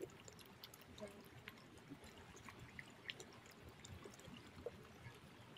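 Near silence: faint lapping water with a few small ticks and clicks.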